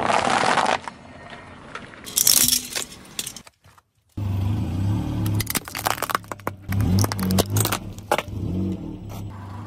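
Car tyre rolling over a pile of shelled peanuts, crunching them with a crackling burst. After a cut, the car's engine hums low while the tyre rolls onto a plastic frog figurine, which cracks and snaps apart in a run of sharp crunches.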